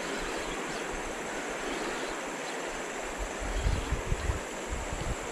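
Shallow river rapids rushing steadily. From about three and a half seconds in, wind buffets the microphone in low gusts.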